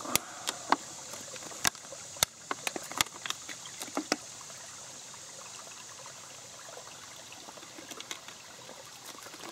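Gently trickling woodland stream, a steady soft wash of water. Over roughly the first four seconds, a string of sharp clicks and knocks from objects handled close by.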